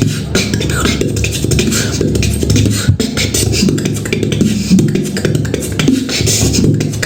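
Human beatboxing: a continuous hummed bass line under a dense stream of quick clicks and hiss-like hi-hat and snare sounds.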